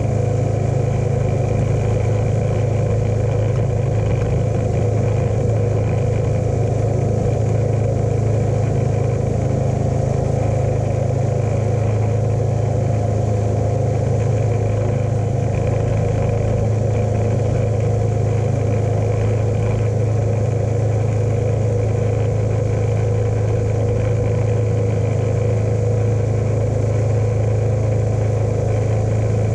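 John Deere lawn tractor engine running at a steady speed while towing a lawn sprayer, an even, unchanging drone with a strong low hum.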